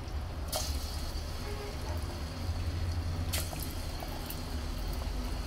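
Cassava dough balls deep-frying in hot oil: a steady sizzle and bubbling, with two brief sharper crackles, about half a second in and past the middle, as more balls are lowered into the oil.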